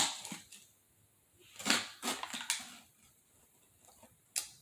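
A few short crinkling rustles and one sharp click from handling a Pringles can, as the barbecue crisps are opened and reached for.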